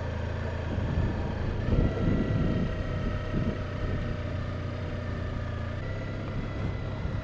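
Honda ST1300 Pan European's V4 engine running on the move. The revs step up about two seconds in and ease back about six seconds in.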